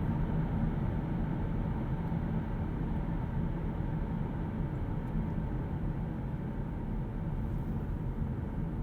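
Hyundai Kona Electric driving at steady speed: an even rumble of tyre and road noise with no engine sound.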